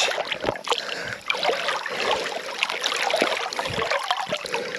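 River water splashing and sloshing around a hand and a large chinook salmon held at the surface in the shallows while it is revived for release.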